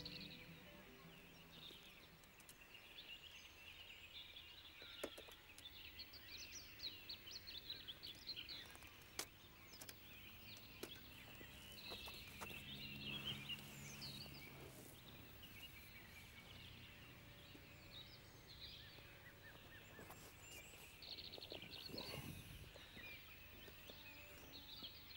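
Faint birdsong, many small chirps and trills, with a few sharp knocks and clunks of fishing tackle being set down and handled.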